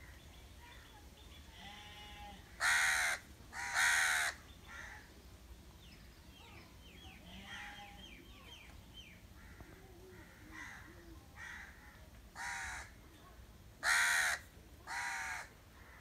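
House crow cawing: two loud, harsh caws about three seconds in, then three more near the end, with a few fainter calls between. Small birds chirp faintly behind.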